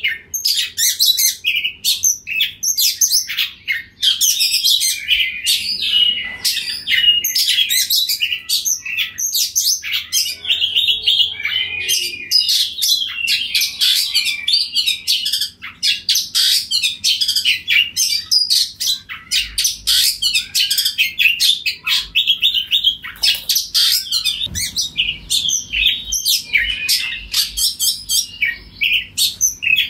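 Oriental magpie-robin singing at full strength, a fast, almost unbroken run of varied whistles and chirps with only a few brief pauses.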